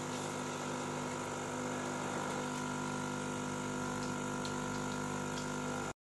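Jura Impressa Z7 coffee machine running its switch-off rinse: the pump hums steadily while water runs through the coffee spouts. The sound cuts off suddenly near the end.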